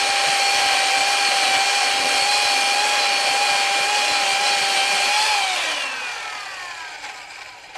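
Electric chainsaw running at full speed with a steady high whine. About five seconds in it is let off, and the whine falls in pitch as the motor spins down and fades away.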